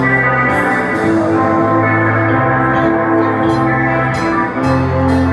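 Live doom metal band playing a slow passage of long, sustained chords over held low bass notes, the chords changing every second or two. Cymbal strikes come in the second half.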